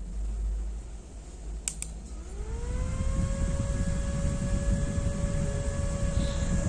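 AVC B6015R07MY 60 mm hydraulic-bearing fan from a Sony PS2, rated 7 V and run here at 12 V. A click comes a little under two seconds in; then the motor whine rises quickly and levels off into a steady high tone over a low rush of air as the fan spins up to full speed.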